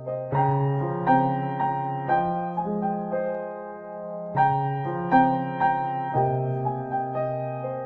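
Background piano music: a slow melody of single notes struck about twice a second over held chords.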